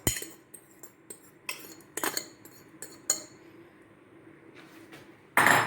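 A spoon clinking and scraping against a bowl and pan as egg and potato batter is poured out: a few scattered clinks, then a louder, longer scrape near the end.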